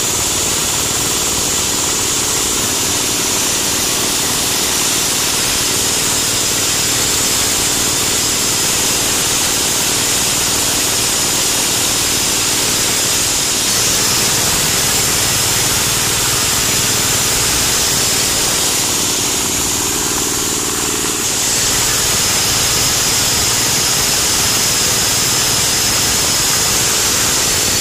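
Areca nut grinding mill, driven by an 8 hp diesel engine through a belt, running steadily and loudly while it grinds dried areca nuts into powder: an engine hum under the even hiss of the grinding.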